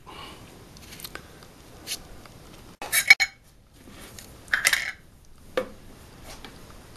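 Small hard wooden pieces and hand tools being handled on a workbench while thin wooden strips are glued into saw kerfs. Scattered light clicks and knocks, with two louder clattering clusters near the middle and one sharp tap after them.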